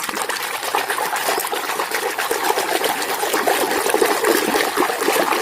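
Water splashing and trickling as hands wash a muddy toy vehicle in a container of water, with many small splashes over a steady slosh.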